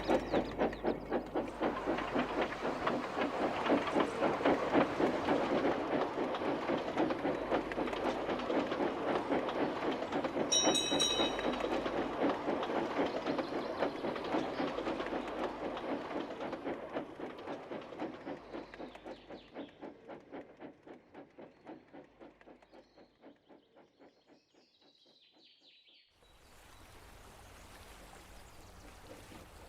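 Steam locomotive chuffing in a steady rhythm, with a short, high whistle blast about eleven seconds in. The chuffing fades away, and after a cut near the end there is only a quiet steady background.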